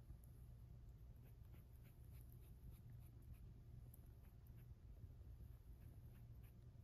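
Near silence, with faint, scattered scratchy ticks as a rabbit is stroked on the head, over a low steady room hum.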